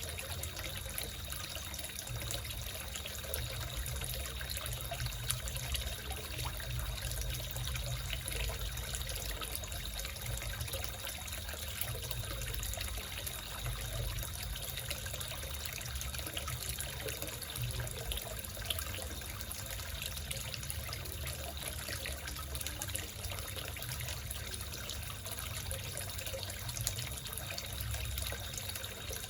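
Water trickling and splashing steadily into a small koi fish pond.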